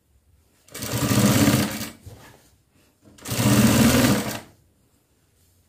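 Sewing machine stitching through gathered cotton fabric in two short runs of about a second and a half each, with a pause of about a second between them; each run starts and stops sharply.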